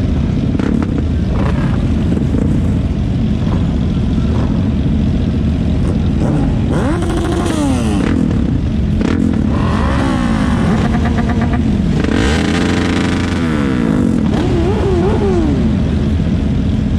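A group of motorcycles idling together at a stop, with riders blipping their throttles: engine revs rise and fall several times from about six seconds in, the highest rev a little past the middle.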